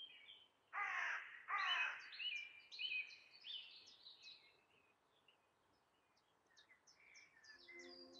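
Birds calling: two loud, harsh calls about a second in, then many short, high chirps and twitters. Low, sustained tones of ambient music come in near the end.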